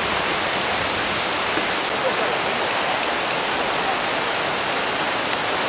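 Steady rush of running water, an even, unbroken hiss.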